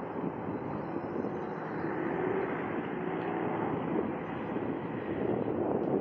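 Road traffic: a car driving past on a town street, a steady rush of engine and tyre noise that swells slightly in the middle.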